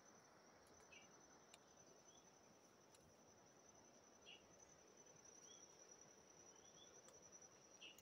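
Near silence: a faint, steady high-pitched insect drone, with a few short, faint chirps scattered through.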